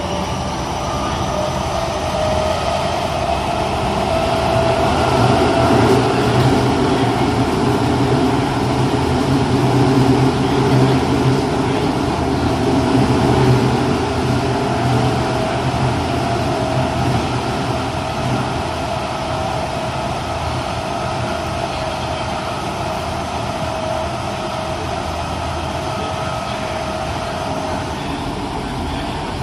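Interior running sound of a Tokyo Metro 05 series subway car with Mitsubishi IGBT-VVVF traction equipment: a steady rumble of wheels on rail with a constant whine, swelling a little louder midway and easing off toward the end, where the whine fades out.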